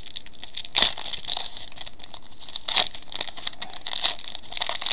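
Trading-card pack wrapper crinkling as it is handled, with sharper crackles about one second and three seconds in.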